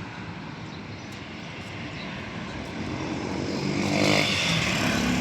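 An engine passing close, growing louder from about three seconds in.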